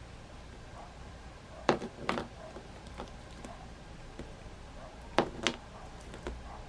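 Hard plastic toy animals being set down and knocked against a play board: two pairs of sharp clacks, one under two seconds in and another about five seconds in, with a few lighter taps between.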